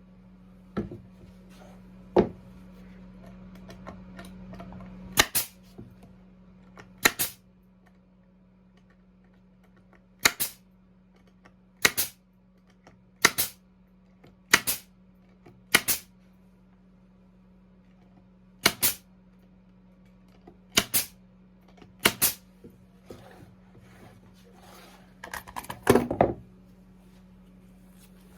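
Sharp knocks of wooden birdhouse parts being fastened together: about ten separate strikes, several in quick pairs, spaced a second or more apart, then a rapid cluster of hits near the end. A steady low hum runs underneath and drops about five seconds in.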